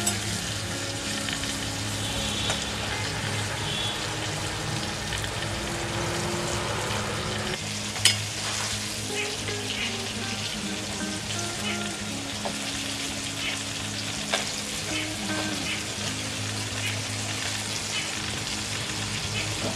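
Koi fish, marinated in salt and turmeric, shallow-frying in hot oil in a wok: steady sizzling and crackling, with a few sharp pops, the loudest about eight seconds in. A soft background tune runs underneath.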